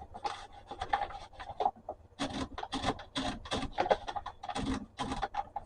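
Antique manual typewriter's carriage being slid back and forth by hand, its mechanism giving a run of irregular clicks and short rubbing rattles.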